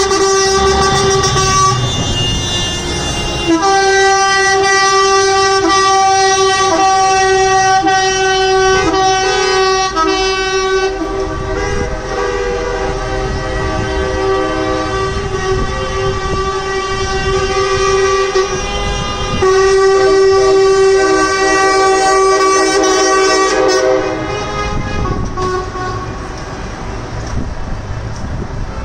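Truck air horns blaring in long held blasts, more than one horn overlapping, with brief breaks about three and a half and nineteen seconds in. They stop about 24 seconds in, leaving the lower rumble of vehicles.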